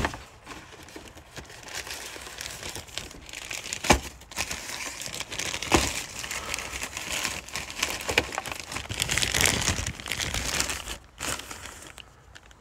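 Cardboard toy boxes and plastic bags being rummaged through by hand: continuous rustling and crinkling with many small clicks and two sharp knocks, about four and six seconds in.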